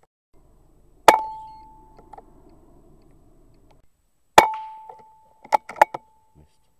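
Two air rifle shots about three seconds apart, each a sharp crack followed by a metallic ring that fades over about a second. A few quick clicks follow near the end.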